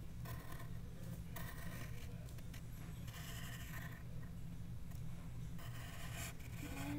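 Wooden pencil scratching on paper in a series of separate strokes, each about half a second to a second long, over a steady low hum.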